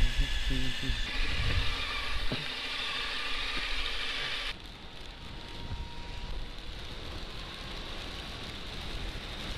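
Honda CBR600F inline-four motorcycle engine running, its pitched note fading within the first second into a steady rush. About four and a half seconds in the sound cuts to duller, steady wind and road noise of riding at speed.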